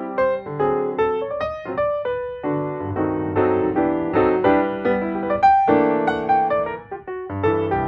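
Background piano music: a melody over chords, the notes struck in quick succession.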